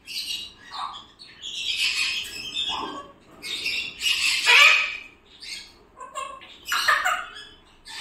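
Pet parrots, a blue-and-gold macaw and a white cockatoo, giving a run of harsh squawks, the loudest about four to five seconds in.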